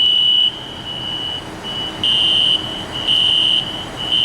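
Building fire alarm sounding: a loud, high-pitched electronic tone in half-second pulses about once a second, with fainter pulses of the same tone in between.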